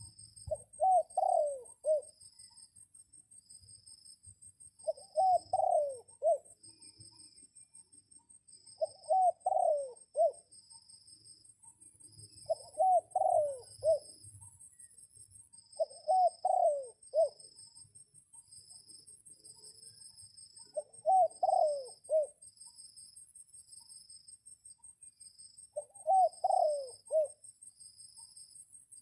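A dove cooing: seven phrases of several deep coo notes, one every four to five seconds, as a caged decoy dove calls to draw in wild doves. Insects trill faintly and steadily behind it.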